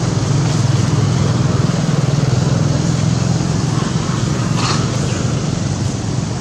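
Steady low rumble of a motor vehicle's engine running, with a brief sharper, higher sound about four and a half seconds in.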